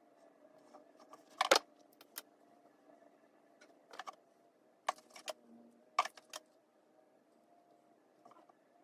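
Sharp clicks and light rattles of a two-barrel hair waver being clamped and handled along the hair, about seven at uneven times, the loudest about one and a half seconds in, over a faint steady hum.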